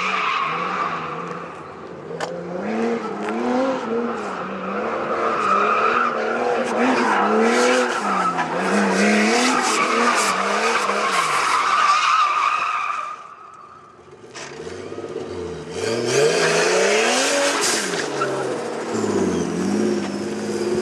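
Drift car's engine revving up and down over and over while its tyres squeal through the slides. The sound drops away briefly about two-thirds through, then returns with more revving and tyre squeal.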